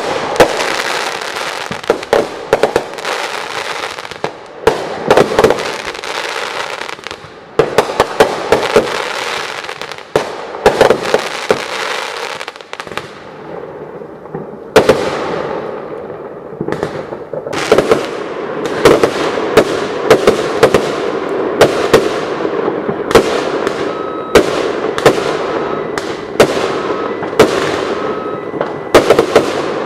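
Fireworks going off in a dense, nearly continuous barrage of bangs and crackling bursts, each trailing off in a fading hiss. There are short lulls about 7, 10 and 13 seconds in, and the bangs come thickest near the end.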